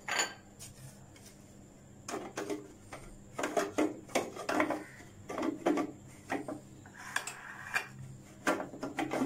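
Clear plastic lid and feed-tube pusher of an electric food processor being handled and fitted onto the loaded bowl: one click at the start, then from about two seconds in an irregular run of short plastic knocks and clicks, with the motor not running.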